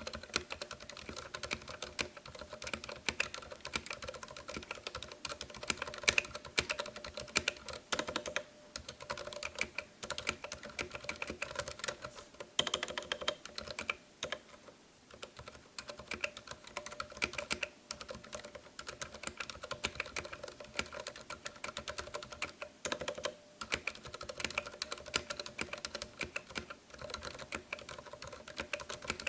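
Continuous fast typing on a mechanical keyboard with Cherry MX Red Silent linear switches: a dense, irregular patter of soft, damped keystrokes.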